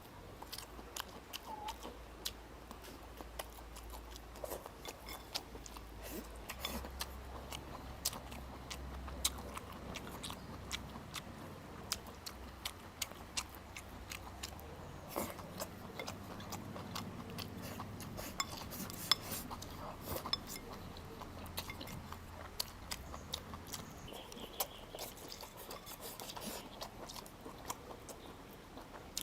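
Close-up eating sounds: chewing and biting, with many short sharp clicks of utensils against bowls and dishes scattered throughout.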